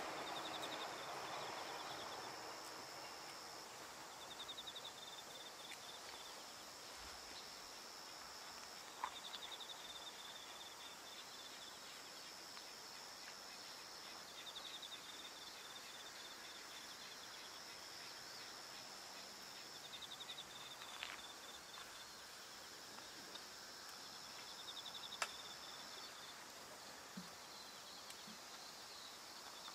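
Insects trilling in a field: a steady high trill that stops and starts every few seconds, and a lower pulsed trill in shorter runs. The rumble of a passing train fades out over the first few seconds, and there are a few faint sharp clicks.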